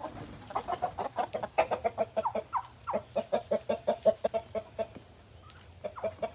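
Domestic hens clucking in quick runs of short, repeated notes, easing off briefly about five seconds in before starting again.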